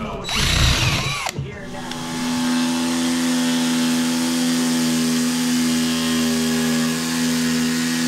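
A cordless drill boring a pilot hole through OSB in short trigger pulls for about the first second and a half, then a Ryobi corded jigsaw cutting a circle out of the OSB sheet, its motor running at a steady pitch.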